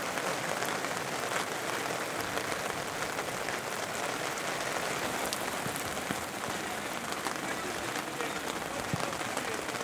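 Steady hiss of rain falling, with a few faint knocks.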